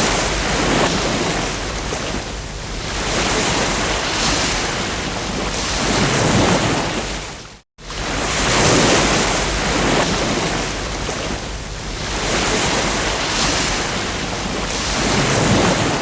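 Ocean surf: waves breaking and washing in, swelling and easing every few seconds, with a momentary cut to silence about halfway through.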